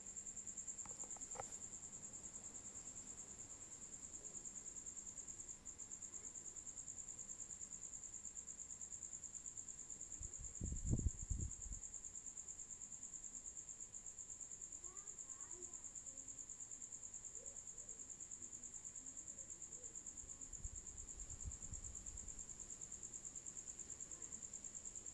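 A cricket trilling steadily in one high-pitched, rapidly pulsing tone. Low dull thumps come about eleven seconds in and again, fainter, around twenty-one seconds.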